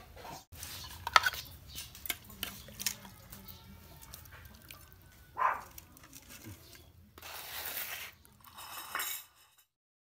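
Metal utensil clinking against a metal cooking pot of curry: a run of light clinks and knocks in the first few seconds, the sharpest about a second in. Later comes a short pitched sound, and the audio cuts off near the end.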